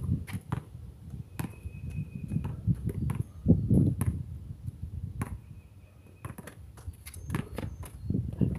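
A basketball dribbled on an outdoor concrete court, with sharp, irregular thumps and footstep scuffs over a low rumble.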